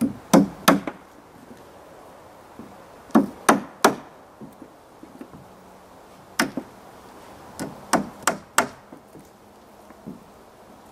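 Hammer striking wood in quick runs of two or three blows, the runs a few seconds apart.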